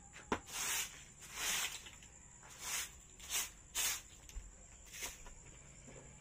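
Broom sweeping a packed dirt floor: about six short swishes, irregularly spaced.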